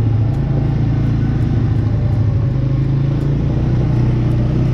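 An ATV engine running steadily under way at low speed, heard up close from the machine's own handlebars, with a constant low hum.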